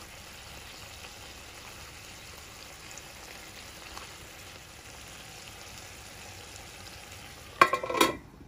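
Thinly sliced beef and cherry tomatoes sizzling steadily in a reducing, thickening sauce in a frying pan. Near the end a metal pan lid is set onto the pan with a brief loud clatter.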